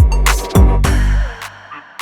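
Hip-hop style backing music with a beat: two deep bass drum hits, one at the start and one about half a second in, with sharp drum hits and synth tones over them.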